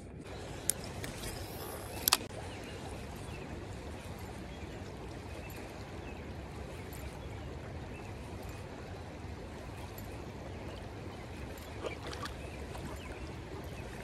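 Creek water running steadily over a shallow riffle, with a couple of sharp clicks, the loudest about two seconds in.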